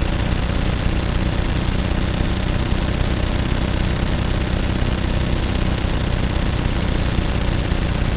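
Gunfire sound effect: sustained, very rapid automatic fire, the shots running together into a steady, even rattle without a break.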